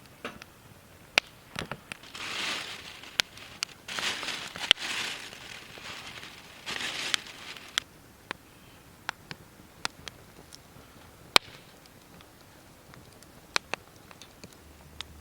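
Wood fire crackling with sharp, irregular pops, and a few short stretches of rustling and crinkling in the first half.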